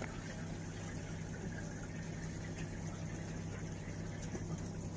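Water running steadily from a handheld shower sprayer into a bathtub, over a constant low hum.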